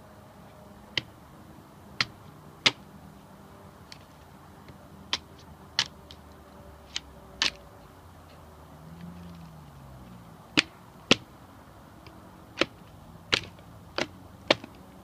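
Hatchet blade striking and splitting pine firewood: about a dozen sharp, separate knocks at an uneven pace, some in quick pairs.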